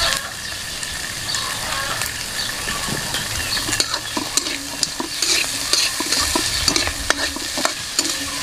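Food frying and sizzling in a hot pan, a steady crackle with many small pops.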